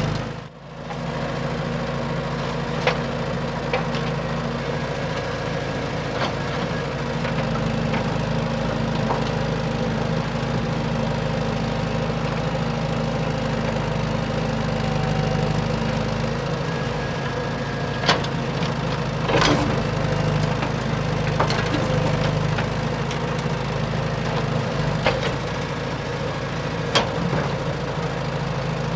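Steady engine-like idling hum from an RC construction model such as a Huina excavator or dump truck, with a few sharp clicks or knocks in the second half.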